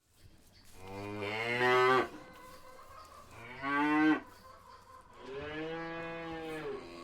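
Cow mooing three times: two short, loud moos that rise in pitch and cut off, then a longer, quieter moo.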